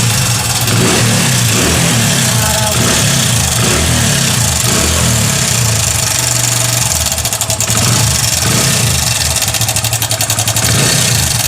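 Hero Passion XPro i3s motorcycle's small single-cylinder engine running just after a kick start, revving and idling. Over the last few seconds its firing turns uneven and pulsing as it begins to stall. The engine has a noise that the mechanic puts down to a loose timing chain.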